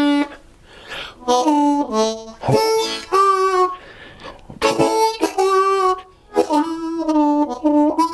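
Ten-hole diatonic blues harmonica playing a lick in several short phrases, notes swelling and dropping in volume with some hit harder for emphasis.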